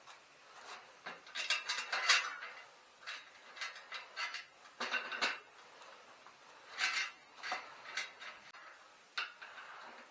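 Light metallic clinks and rattles of hand tools and bicycle wheel parts being handled, in scattered clusters, the loudest about two seconds in.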